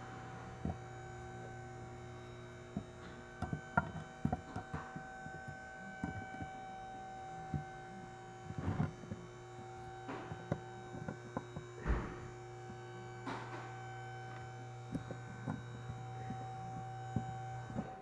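Steady electrical hum, with scattered light clicks and knocks as rear disc brake pads and their metal clips and bracket are handled on a workbench.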